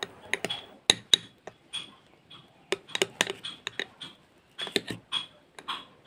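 A metal spoon stirring a thick banana paste in a glass bowl, clinking and scraping against the glass in irregular clusters of sharp taps.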